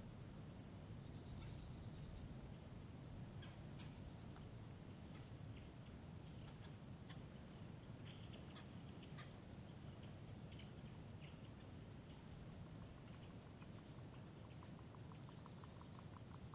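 Faint woodland ambience: a low wind rumble with scattered short bird chirps and calls, and a brief rapid ticking near the end.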